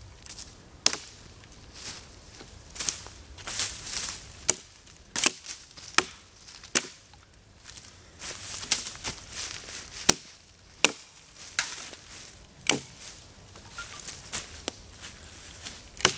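Axe chopping dry dead wood for firewood: a dozen or so sharp strikes at uneven spacing, roughly one a second.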